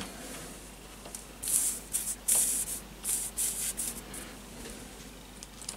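Soldering iron melting solder onto a circuit-board joint: several brief, high hissing sizzles of the solder's flux between about one and four seconds in.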